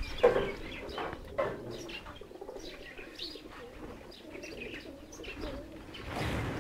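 Pigeons cooing amid many short, scattered bird chirps, with a brief flutter of wings just after the start.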